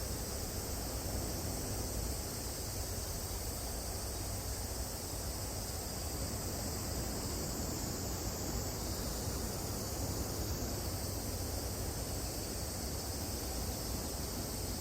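Cicadas droning steadily in a continuous high hiss, with a low rumble underneath.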